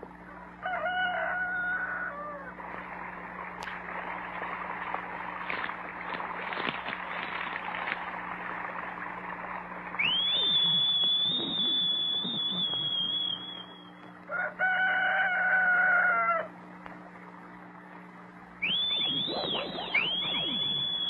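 A rooster crowing twice, once about a second in and again about fifteen seconds in, with fowl clucking between. A long high whistle held for about three seconds comes near the middle, and several quick rising whistles come near the end.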